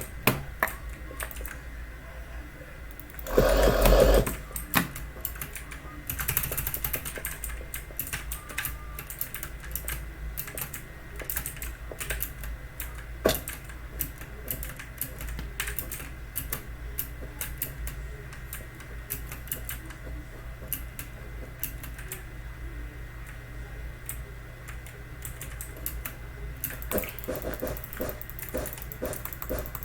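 Typing on a Logitech mechanical keyboard with clicky GX Blue–style switches: a steady stream of sharp key clicks, with a louder, dense flurry of keystrokes about three to four seconds in and another near the end.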